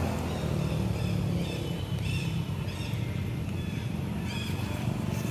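A steady low rumble with a few short, high, arching calls over it, several around two seconds in and another pair about four seconds in.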